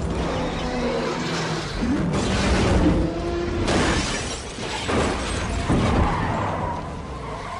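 Car-crash sound effects: glass shattering and debris scattering in a continuous jumble of breaking noises, over background music.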